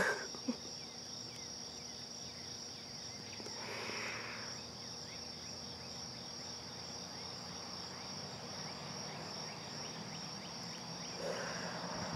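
Steady, high evening chorus of insects running without a break. A soft breathy rush rises and fades about four seconds in, and again briefly near the end.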